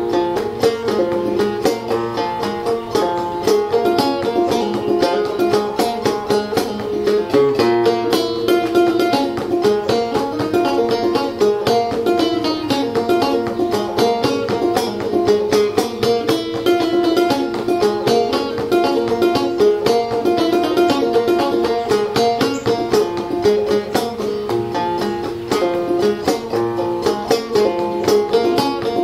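Solo banjo played clawhammer style: a steady, unbroken run of plucked notes.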